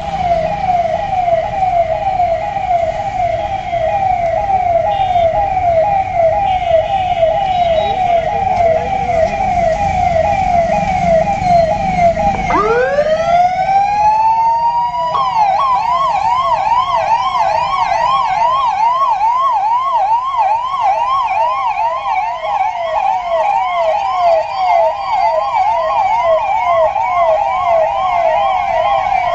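Police vehicle electronic sirens sounding loudly. A fast warble repeats about four times a second; about twelve seconds in, a second siren winds up in pitch and joins with its own, slightly higher warble, and the two overlap to the end.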